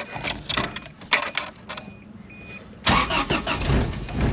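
Ignition keys jangling and a dashboard warning chime beeping in the cab of a 1983 Toyota Sunrader. About three seconds in, its 3RZ four-cylinder engine cranks and fires on a cold start, starting loudly and running.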